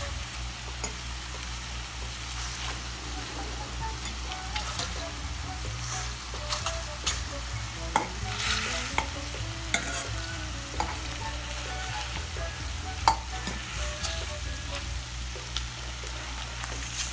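Chicken pieces sizzling in hot oil in a pot as they are stirred and turned, with scattered sharp clicks and scrapes of the cooking utensil against the pot.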